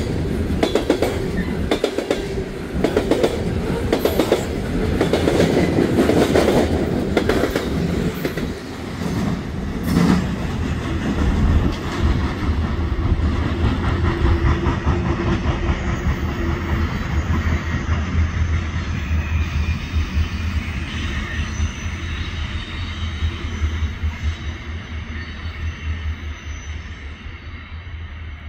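Loaded coal train's hopper cars rolling past, steel wheels clicking over rail joints, with a sharp knock about ten seconds in. The clicking then gives way to a steadier low rumble that fades toward the end as the train draws away.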